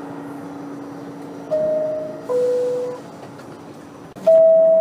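New York City subway car door chime: a two-note descending ding-dong about one and a half seconds in, then the high note of another chime starting near the end, over a steady low hum. It is the warning that the doors are closing.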